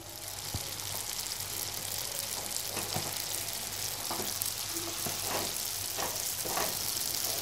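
Oysters and onion masala sizzling in a nonstick kadhai while a spatula stirs and scrapes through them. The stir-fry comes after steaming under the lid. The sizzling hiss is steady, with repeated spatula strokes about once a second in the second half.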